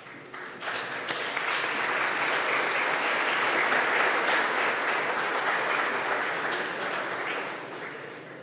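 Audience applauding. The clapping swells about half a second in and tapers off near the end.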